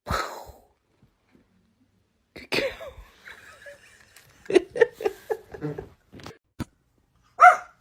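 A dog making a run of short huffs and yips, then one louder bark near the end.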